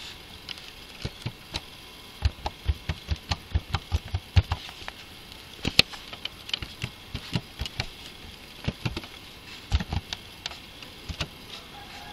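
Keys clicking on a computer keyboard as a password is typed, in irregular runs of several keystrokes a second with brief pauses between them.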